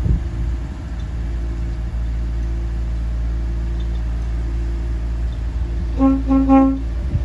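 Engine idling steadily. About six seconds in, an air-operated train horn gives three short toots in quick succession.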